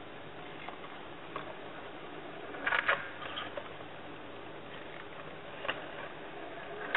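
Paper automaton mechanism running: its cams and followers give scattered light clicks and knocks, the loudest pair about three seconds in, over a steady hiss.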